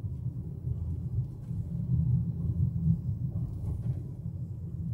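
Low, steady rumble of a car's engine and tyres heard from inside the cabin while driving.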